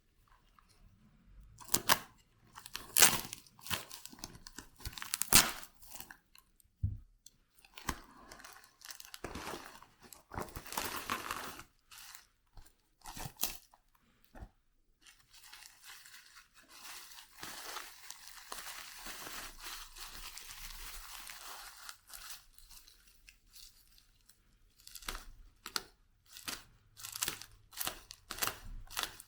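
A mailing bag being torn open and its packaging handled: tearing, crinkling and crunching in scattered bursts, with a longer steady rustle about 16 to 22 seconds in.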